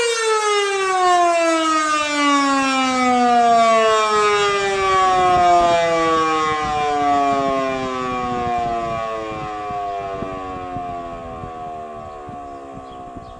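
Federal Signal Model 2 electromechanical tornado siren winding down at the end of its steady alert tone: the pitch falls steadily as the rotor slows, and the sound fades gradually.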